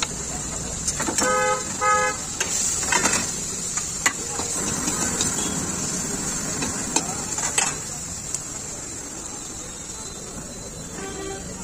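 Metal ladle knocking and scraping in a wok as vegetables are stir-fried at a street stall, in several separate clanks. A vehicle horn toots twice about a second in, and once more faintly near the end.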